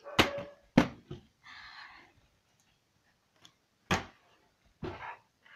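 Plastic water bottle flipped and landing on a hard surface: four sharp knocks and thuds, two close together near the start, then two more about four and five seconds in, with a short rustle in between.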